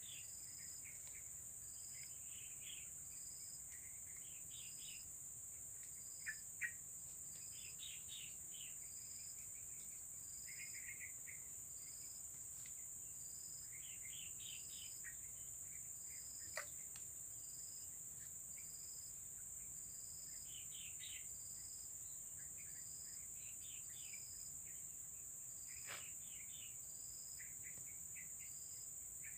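Streamside insects, crickets or cicadas, buzzing steadily and high-pitched, with a short chirp repeating about once a second. Scattered bird chirps and a few soft clicks come over it.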